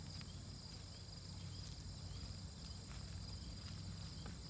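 Steady, high-pitched chorus of insects, with a low rumble underneath.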